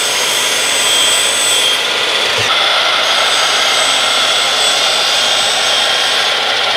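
Makita 12-inch sliding compound miter saw running at full speed with its blade down, cutting through two wooden test boards in turn. The motor and blade give a loud, steady whine. There is a short knock about two and a half seconds in, after which the whine shifts slightly in pitch.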